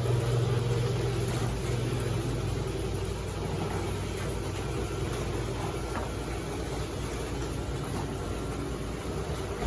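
LiftMaster screw-drive garage door opener running steadily as the door travels: a constant low motor hum.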